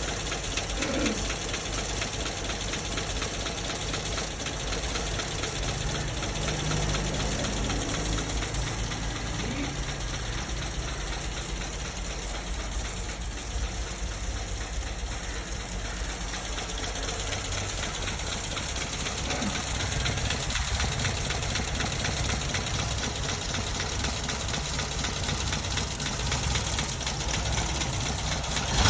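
Freshly rebuilt Toyota 4K carburetted four-cylinder pushrod OHV engine idling steadily, with a new rocker shaft replaced to cure valve-train noise.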